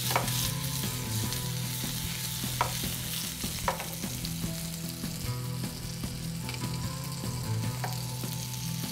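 Chicken kababs sizzling as they fry in a shallow layer of oil in a non-stick pan, a steady hiss with a few light utensil clicks and a steady low hum beneath.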